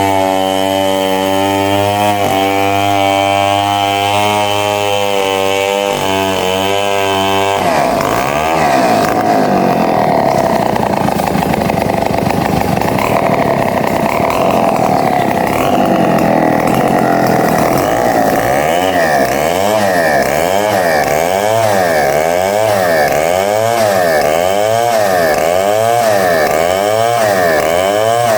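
Vertical bandsaw running, a steady machine hum with a fixed pitch that changes about eight seconds in to a wavering sound, swelling and falling regularly a little more than once a second.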